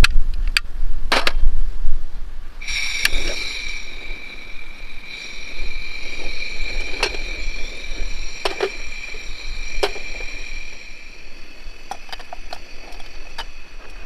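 Metal clicks as the pot supports of a folding canister gas camp stove are snapped open. About three seconds in, the gas starts hissing steadily from the burner with a high, whistle-like tone, and a few clicks and taps come over it.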